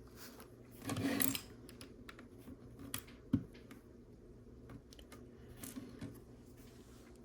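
Small plastic Lego bricks being handled and fitted together: faint scattered ticks and clicks, a short rustle about a second in and a sharper click a little after three seconds.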